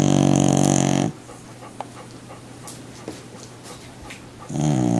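A sleeping animal snoring: a loud, even-pitched buzzing snore that ends about a second in, and the next begins near the end.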